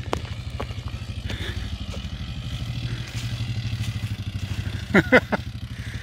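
ATV engine running at low speed as it approaches, a steady low putter that grows slightly louder. About five seconds in, two brief loud sounds fall quickly in pitch.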